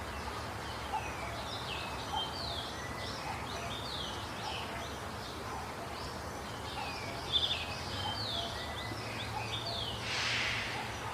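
Birds chirping and singing over a steady background hum, many short sweeping notes one after another, with a brief hiss about ten seconds in.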